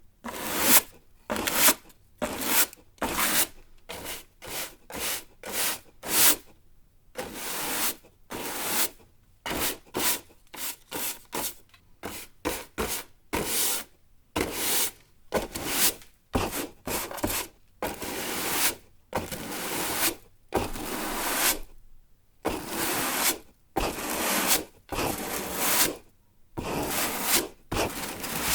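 Broom sweeping in repeated brushing strokes, quick short strokes at first, then longer strokes about one a second.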